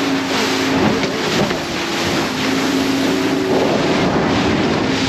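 Motorboat engine running steadily under way, with wind and water rushing past the hull.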